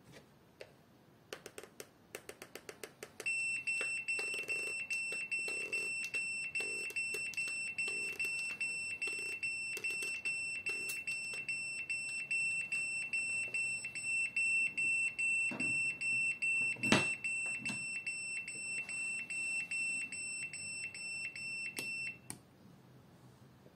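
Small 5 V buzzer of an Arduino rain alarm sounding one steady high-pitched tone: the rain sensor plate is wet and the circuit is in rain-alert mode. It starts about three seconds in, after a quick run of clicks, and cuts off suddenly near the end.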